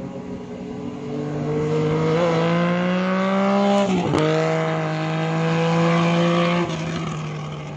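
A vehicle engine revving up under acceleration, its pitch climbing. About four seconds in there is a brief break and a drop in pitch, like an upshift, then it pulls on and falls away near the end.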